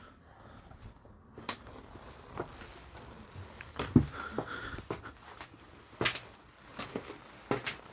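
Scattered light knocks and clicks of objects being handled and moved, with louder thumps about four and six seconds in.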